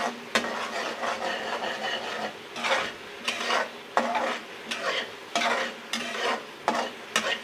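Spice masala being stirred and scraped around a pan as it fries, in repeated short scraping strokes about once or twice a second over a light sizzle: the masala being bhuna, fried down after garam masala and salt were added.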